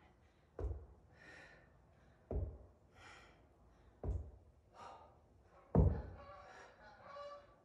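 Four heavy thuds on rubber gym mats, about every 1.7 s, during kettlebell sumo jump squats, each followed by a hard breath out; the last thud is the loudest.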